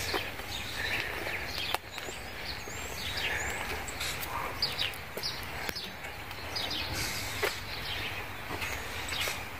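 Outdoor ambience: small birds chirping repeatedly over a steady low rumble, with a few sharp clicks.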